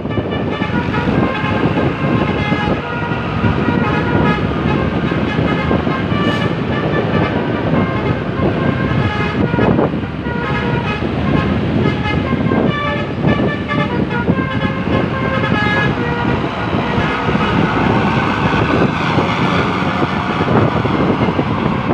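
A Basuri telolet horn on a bus playing a long, non-stop melody: a run of short horn notes stepping up and down in pitch, over engine and traffic noise.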